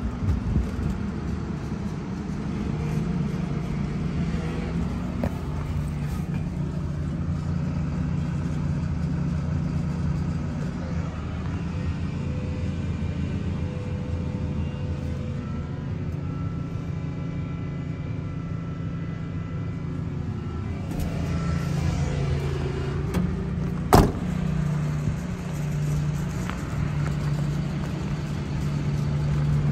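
Diesel engine of a 2005 International 4300 box truck idling steadily. A single sharp knock comes a little after two-thirds of the way through.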